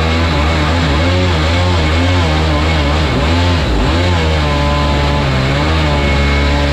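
Supercharged mini jet boat engine running hard, its pitch rising and falling over and over as the throttle and load change.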